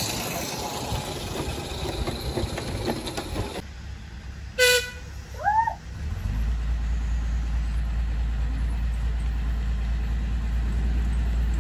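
Noisy clatter of a garden-scale model train running, then after a cut a narrow-gauge diesel locomotive's horn gives one short toot, followed by a brief curving tone. From about six seconds in, a steady low diesel engine rumble sets in.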